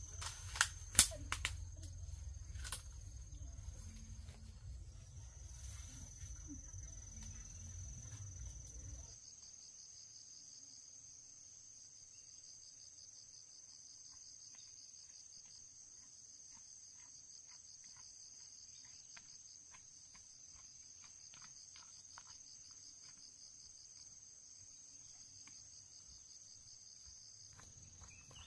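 Insects trilling steadily in a high, fast-pulsing drone. For the first nine seconds a low rumble sits under it, with two sharp knocks about a second in; after that only the insect trill and faint ticks remain.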